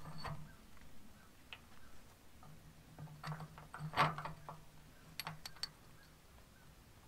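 Scattered light metallic clicks and clinks of hand tools working bolts on a grain drill's frame: a cluster near the middle and a quick run of ticks a little later, over a faint low hum.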